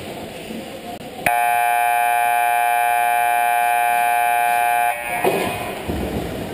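Ice rink scoreboard buzzer sounding one steady, loud blast of about three and a half seconds, starting a little over a second in, as time runs out and play stops. Rink noise of skates and players is heard before and after.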